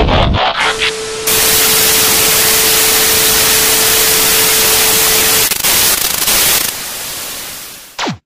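Television static sound effect: about a second of glitchy crackling, then a loud steady hiss with a single steady tone under it through the middle. The hiss fades near the end, and a quick falling whine follows as an old CRT screen switches off.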